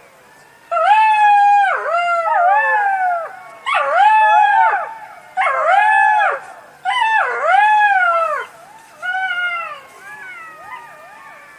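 A fox giving a series of howling, yelping calls, each rising and then falling in pitch, in about six loud bouts of roughly a second, with a few fainter calls near the end.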